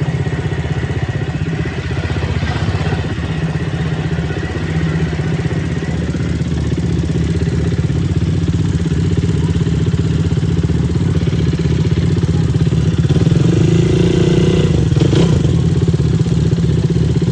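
ATV (quad bike) engine running steadily under way, getting a little louder partway through, with a short sharp knock near the end.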